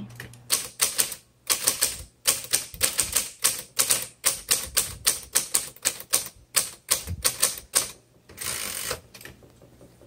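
Smith Corona Electra 120 electric portable typewriter typing a line of text: quick runs of sharp key strikes, several a second, with short pauses between words, over a steady low motor hum. Near the end the strikes give way to a short rushing noise.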